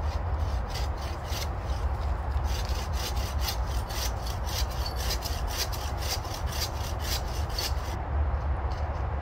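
Small hand saw cutting through a fallen wooden branch: a run of rasping back-and-forth strokes, about three to four a second, that builds after a couple of seconds and stops near the end.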